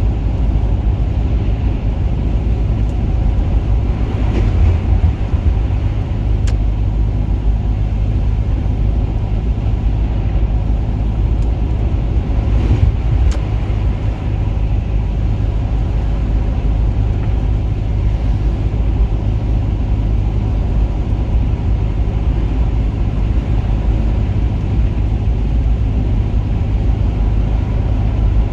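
Steady low rumble of a car in motion, road and engine noise, with a few faint ticks.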